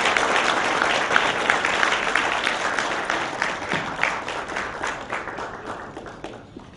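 Audience applauding after a speech, a dense patter of many hands clapping that slowly dies away near the end.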